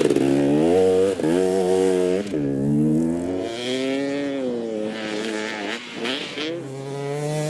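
KTM two-stroke dirt bike engine revving while ridden, its pitch climbing and falling several times with throttle, with a sharp dip about two seconds in.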